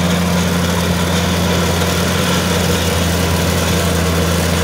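Rice combine harvester's diesel engine running steadily as it cuts paddy: a constant low drone that does not change in pitch or loudness.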